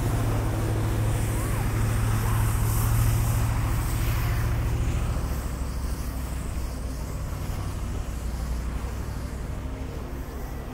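A low, steady machine hum, loudest for the first five seconds and then fading, over a faint wash of outdoor noise.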